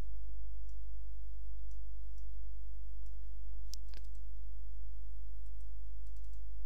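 Computer mouse clicks, scattered and faint, with two sharper ones about four seconds in and a quick cluster near the end, over a steady low hum.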